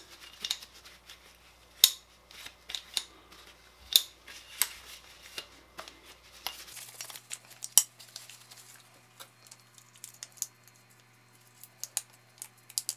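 An AR-15 lower receiver handled while its magazine well is wiped out with a cloth: scattered light clicks and knocks of the receiver and small parts, with faint rubbing.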